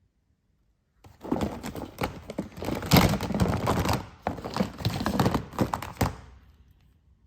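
Phones and alarm clocks being rummaged through in a box, hard objects clattering and knocking together. The dense run of knocks and rattles starts about a second in and dies away near the end.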